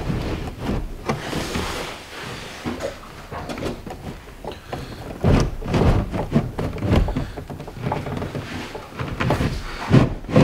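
A thick marine-plywood transom board scraping and knocking against the aluminum boat hull as it is worked down into place. The sounds are irregular, with a sharp knock near the end.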